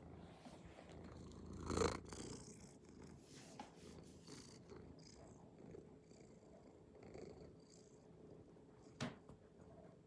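Domestic cat purring softly and steadily, with a brief louder noise about two seconds in and a short click near the end.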